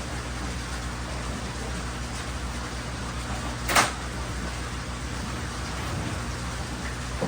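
Steady low hum and hiss of running aquarium air pumps, with one short sharp noise about halfway through, the loudest sound.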